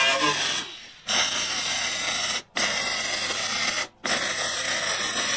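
MIG welder arc crackling as steel braces are stitch-welded to a steel sheet lid, in runs of just over a second each broken by short pauses between welds.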